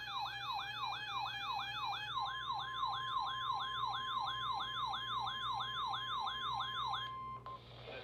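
Several NOAA weather radios alarming together for a severe thunderstorm warning. A rapidly repeating falling siren sweep comes about three times a second. A steady lower tone stops about two seconds in, and a steady, higher warning tone of about 1 kHz takes over, like the 1050 Hz weather-radio alarm. Both cut off about seven seconds in.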